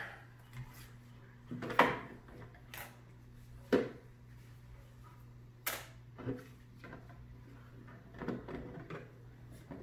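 3D-printed plastic turbine scoop parts being handled and pushed together on a wooden table: about five sharp plastic clicks and taps spread through, with softer rubbing and rustling between, over a faint steady hum.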